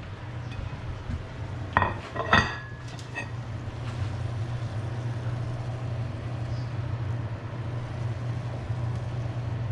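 A serving utensil clinks against a pan and plate: two sharp clinks about two seconds in, then a few lighter taps, over a steady low hum.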